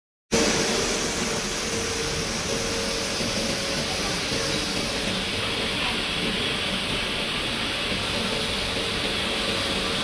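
Steady running noise of cable-making machinery, a constant hiss and hum from the wire-twisting and stranding machines, with a faint steady tone.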